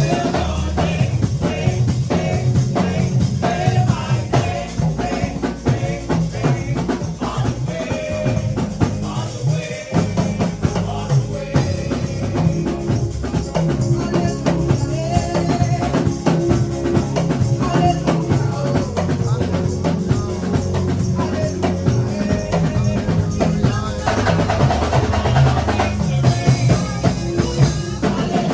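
Gospel praise music: a drum kit keeping a steady beat under bass and singing voices.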